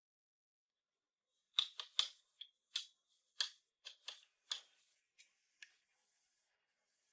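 A run of about a dozen sharp, crisp clicks from kitchen handling, starting about a second and a half in, irregularly spaced and thinning out near the end.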